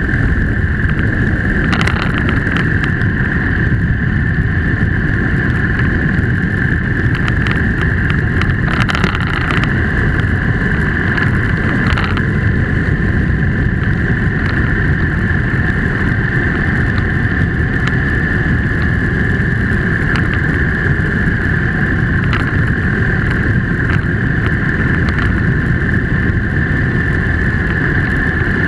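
Steady road and wind noise from a vehicle driving along a paved road, with a constant high hum over a deep rumble and a few light ticks.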